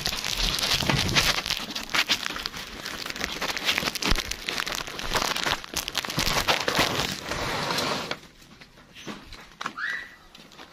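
Dense rustling and crackling with many sharp clicks, which stops abruptly about eight seconds in. A single short rising chirp follows near the end.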